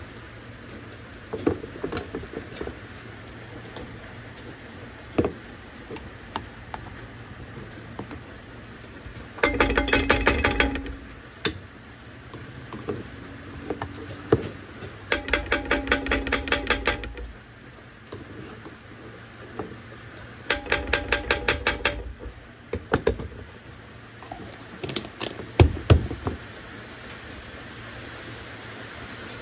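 A plastic rice paddle scraping margarine out of a plastic tub in three short squeaky, chattering bursts, each one to two seconds long, with a few light knocks in between.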